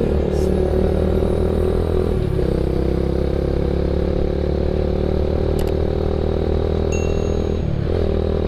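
Yamaha MX King's single-cylinder four-stroke engine running while the bike is ridden at a steady pace. The engine note dips briefly twice, about two seconds in and near the end.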